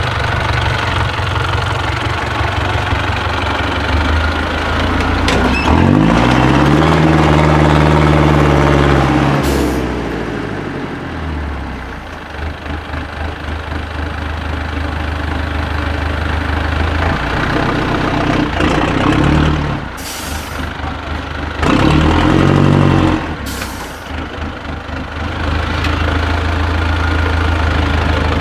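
Diesel engine of an off-road trial truck pulling at low revs through a steep rut. It revs up hard for about four seconds early on and twice more briefly near the end, with a short hiss as each rev burst falls away.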